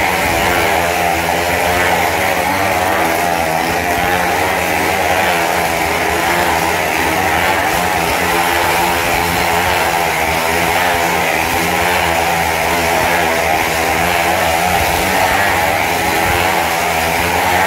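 Two motorcycle engines running hard as they circle the inside of a wooden wall-of-death drum, their pitch wavering up and down without a break.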